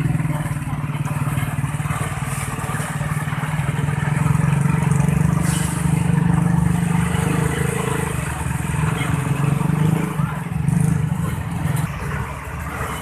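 Road traffic with a large engine running steadily, a continuous low hum that swells a little in the middle.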